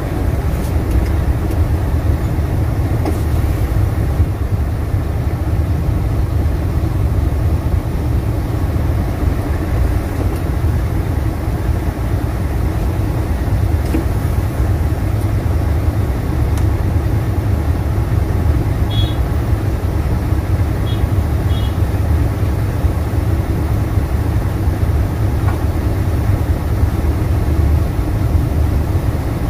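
Truck engine idling steadily in stop-and-go traffic, heard from inside the cab as an even low rumble.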